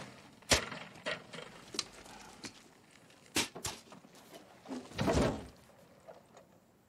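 Film sound effects between lines of dialogue: a few sharp knocks and clicks, the loudest about half a second in, then a longer rustle about five seconds in.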